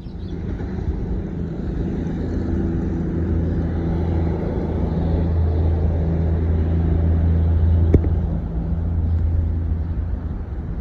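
Car running, heard from inside the cabin: a steady low engine and road hum that swells gently, with a single sharp click about eight seconds in.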